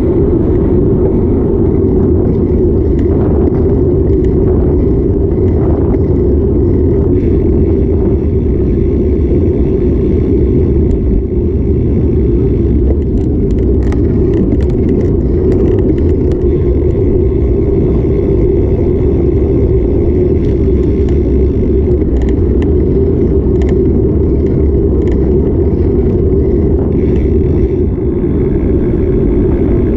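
Steady, loud wind rumble on the microphone of a camera riding on a moving bicycle, with no break or change.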